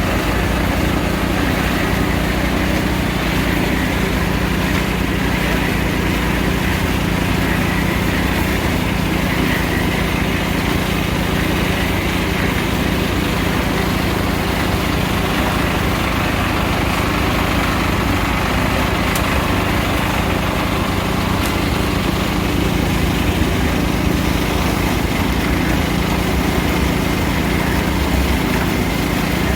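Small engine running at a steady speed, with no change in pitch or level.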